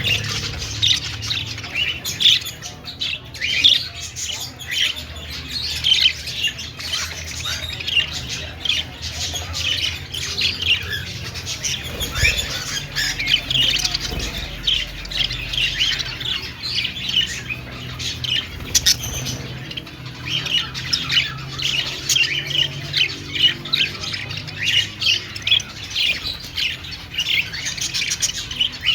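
Budgerigars chirping and warbling continuously, a dense run of rapid, short, scratchy notes.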